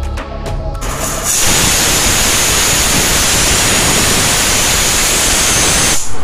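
Aluminium pressure cooker releasing its steam through the weight valve: a loud, steady hiss that starts about a second in and cuts off suddenly near the end.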